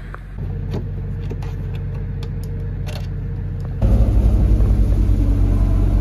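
A steady low mechanical hum with a few faint clicks. A little past halfway it gives way suddenly to a louder low rumble with a pulsing beat.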